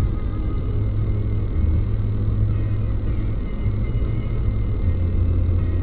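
Steady low rumble of a car's engine and road noise heard from inside the cabin, with the car creeping along in slow traffic.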